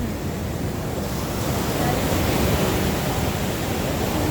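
Ocean surf washing steadily onto the beach, with some wind on the microphone.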